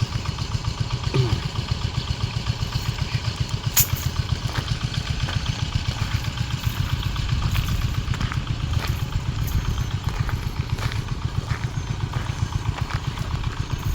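Small engine running steadily at an even speed, with a fast low throb and a single sharp click about four seconds in.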